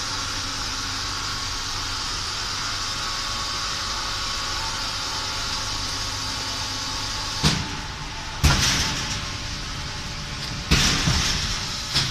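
Hydraulic hot plate welding machine running with a steady hum from its hydraulic drive while it clamps the two polypropylene toilet-seat halves. Four sharp clunks follow in the last few seconds as the press opens.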